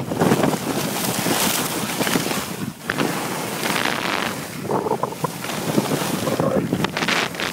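Wind rushing and buffeting over the microphone of a skier moving fast downhill, mixed with skis scraping over the snow, the noise surging and easing with the turns.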